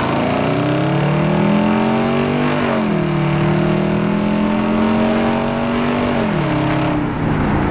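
A straight-piped V engine with true dual exhaust (separate pipes for each cylinder bank, no crossover) accelerating hard. The revs climb, drop sharply about two and a half seconds in, climb again and hold, then fall again about six seconds in.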